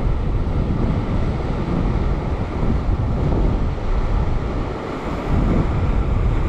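Sea surf washing over a rock ledge, with wind buffeting the microphone; the wash eases briefly just before five seconds in, then builds again.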